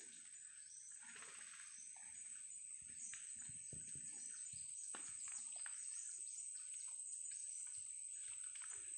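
Wild birds giving many short, quick chirps over a steady high-pitched drone of insects.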